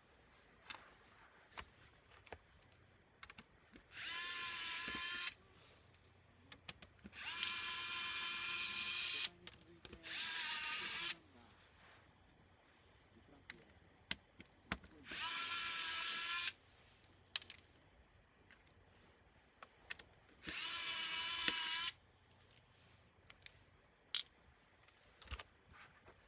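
Small electric screwdriver running in five short bursts of a steady high whine, each one to two seconds long, as screws are taken out of a laptop during disassembly. Small clicks and taps of screws and parts come between the bursts.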